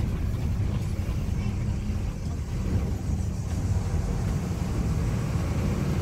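Steady low rumble of a moving shuttle vehicle heard from inside, with wind through the open window buffeting the microphone.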